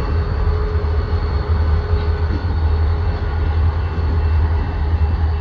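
Two BNSF diesel-electric locomotives moving past, their engines running in a steady low rumble with a constant whine above it.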